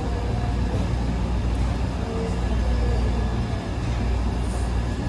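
Wascomat Senior W125 35-pound commercial washing machine running mid-cycle, with a steady low hum.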